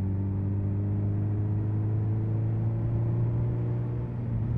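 Suzuki Hayabusa's inline-four engine running steadily as the bike is ridden. Its pitch creeps up slightly, then dips briefly about four seconds in before holding steady again.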